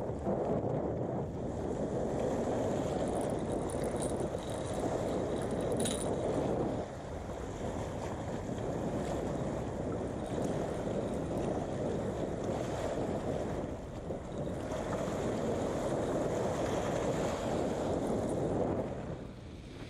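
Strong wind buffeting the microphone in gusts, easing briefly a few times, with waves washing against the rocky shore underneath.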